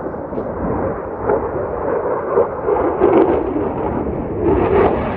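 F-16 fighter jet's engine heard in flight: a loud, continuous rumble with ragged, crackling surges and no clear tone.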